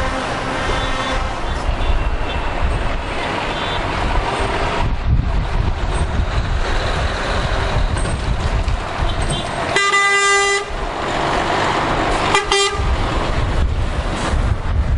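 Heavy trucks drive past close by one after another, with steady engine and tyre noise. A truck horn blasts for just under a second about ten seconds in, then gives a second, shorter toot about two seconds later.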